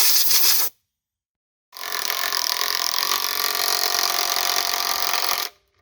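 Power drill running as it bores holes in steel, heard as a short burst and then about four seconds of steady running, with abrupt cuts to dead silence in between.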